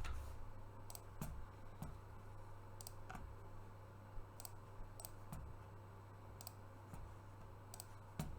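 Computer mouse clicking about ten times at irregular intervals, over a faint steady low hum.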